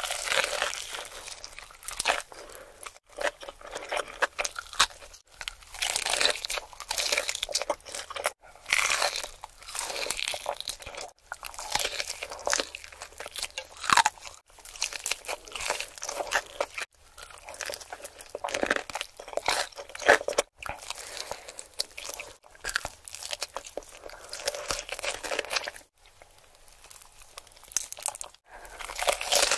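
Close-miked eating: loud, rapid crunching and chewing of crispy food, bite after bite, broken by several abrupt short silences.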